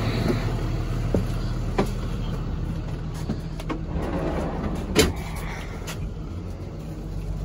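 A vehicle engine idling with a steady low hum, with a few short knocks and thumps over it, the loudest about five seconds in.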